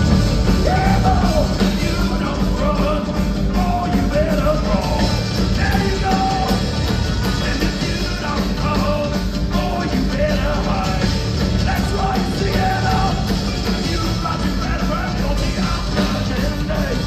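Live band playing loud amplified music with a singer's voice over it.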